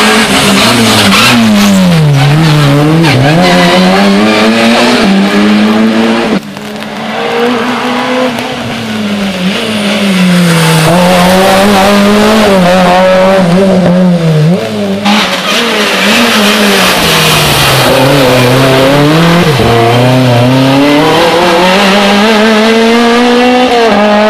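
Rally cars driven flat out on a stage, several in turn: engines revving up and dropping back through gear changes, with tyre squeal. The sound breaks off and changes abruptly about six seconds in and again about fifteen seconds in.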